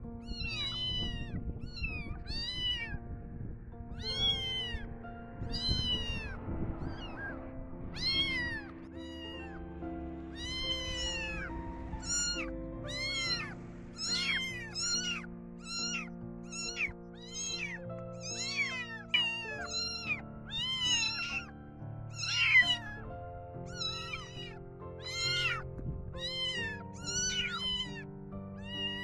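Young kittens crying loudly: a long series of high meows, each rising then falling in pitch, coming about once a second at first and faster from about halfway through. These are the distress cries of kittens left without their mother. Background music plays underneath.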